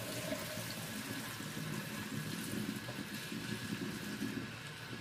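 Murky soapy wash water poured from a plastic bin into a stainless steel sink, splashing and gurgling steadily down the drain: the fiber's first shampoo soak being drained off.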